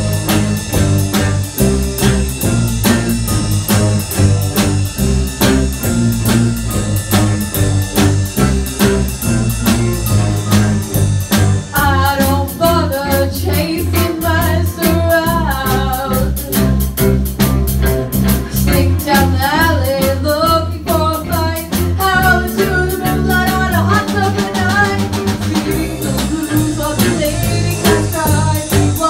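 Live band of young musicians playing a bluesy rock number on electric guitar, keyboard and drum kit, with a steady beat. The first part is instrumental; about twelve seconds in, a girl's lead vocal comes in over the band.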